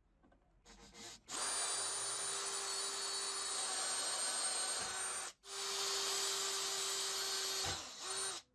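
Angle grinder running at speed with a steady high-pitched whine. It breaks off abruptly for an instant about five seconds in, then runs on and stops suddenly near the end.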